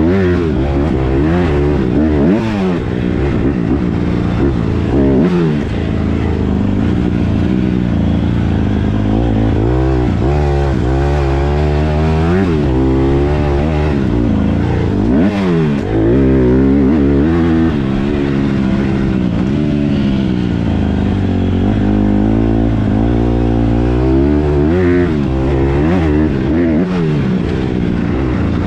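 Honda CRF150R dirt bike's single-cylinder four-stroke engine, heard from the rider's seat, revving up and dropping back again and again as the rider opens and closes the throttle and shifts gears.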